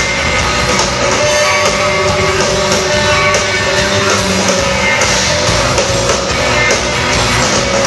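A rock band playing live, with guitar and drums, loud and continuous.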